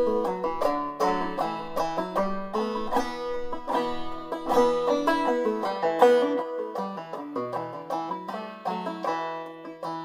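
Long-neck banjo played clawhammer style in low sawmill tuning (eBEAB): a steady rhythm of plucked notes and down-stroke brushes over droning open strings.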